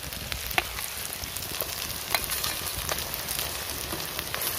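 Sliced onions frying in hot oil in a wok, with ginger-garlic and red chilli paste just added: a steady sizzle with scattered crackles and pops.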